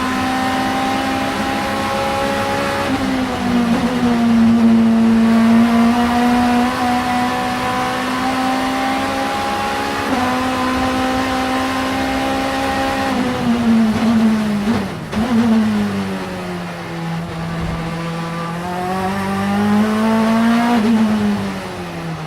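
2-litre four-cylinder engine of the 888 Vauxhall Vectra Supertouring race car, running hard at high revs. Its pitch holds or climbs slowly, then steps and falls sharply around two-thirds of the way in before rising again near the end.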